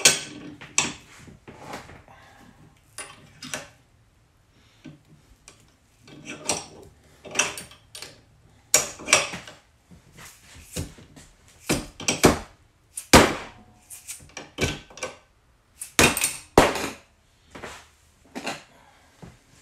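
Dead-blow mallet striking a combination padlock hung on a bench vise, repeatedly and irregularly: sharp knocks with metal rattling, some in quick pairs, as the lock is rapped to jar its shackle open.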